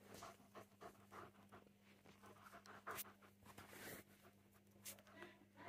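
Faint sounds of a Siberian husky puppy chewing a tennis ball: soft, irregular clicks and gnawing with light panting, over a steady low hum.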